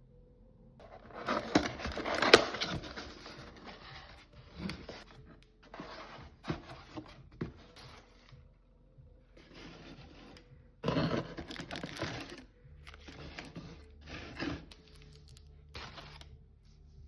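Parts being handled during a tumble dryer repair: irregular scraping, rubbing and clicking in bursts of up to a second or two, with short pauses between, the loudest about two seconds in and again about eleven seconds in.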